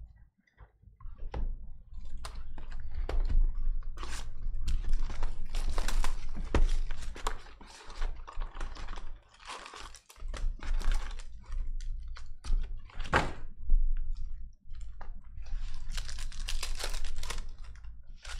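Trading-card pack wrappers being torn open and crinkled, with cards clicking and rustling as they are flicked through by hand.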